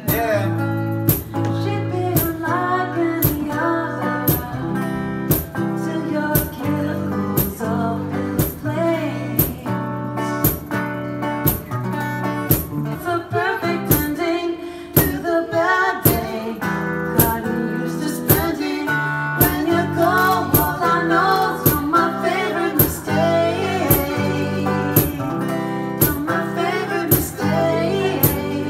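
Live acoustic performance: an acoustic guitar strummed in a steady rhythm while a woman sings the melody into a microphone.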